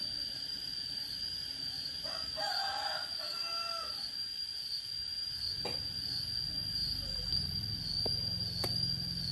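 A rooster crows once, about two seconds in, for around a second and a half, over a steady high-pitched whine. A low rumble builds in the second half, with a few sharp clicks.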